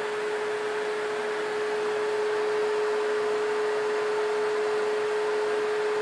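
ProTeam backpack vacuum cleaner running at full speed: a steady motor whine with one held tone over a rush of air, measuring about 81 dB at the wearer's ear.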